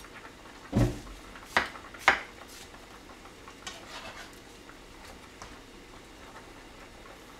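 Kitchen knife cutting watermelon on a cutting board: a dull thump, then two sharp knocks about half a second apart, followed by a few light taps.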